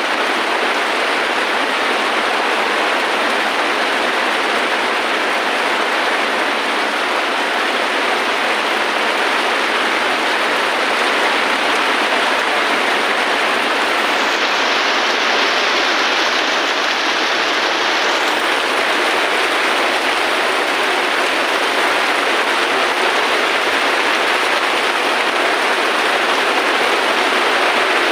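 Steady rain falling, an even hiss of water with no thunder or separate drops standing out.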